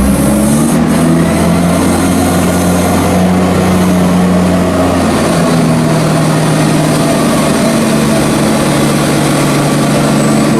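Loader's diesel engine working hard as it drives over a maize silage clamp to roll and compact it, its engine note shifting up and down a little.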